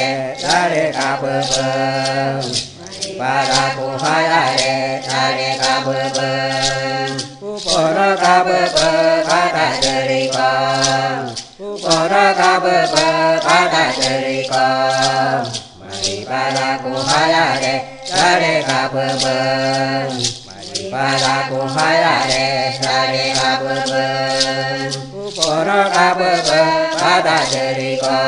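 Voices singing a Macuxi parixara chant in phrases of about four seconds, over a steady beat of sharp percussive strokes.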